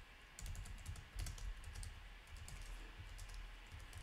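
Faint typing on a computer keyboard: an irregular run of keystrokes as a line of code is entered.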